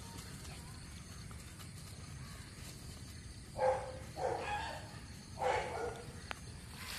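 A boxer puppy gives three short whines in quick succession about halfway through, while it is held and positioned by hand.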